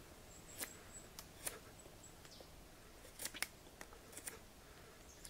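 Knife blade shaving the edge of a spruce hearthboard: about seven short, faint scraping cuts, some in quick pairs.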